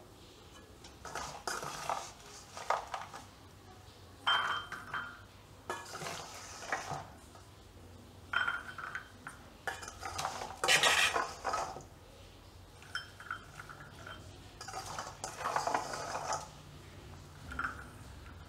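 Metal serving spoon scooping spiced roasted cashews out of a stainless-steel bowl and tipping them into a glass bowl: a series of scrapes, clinks and rattling nuts, one scoop every second or two.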